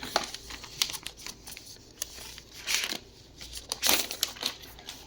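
Packaging being handled and opened: crinkling and rustling with scattered small clicks, and two louder rustles near the middle.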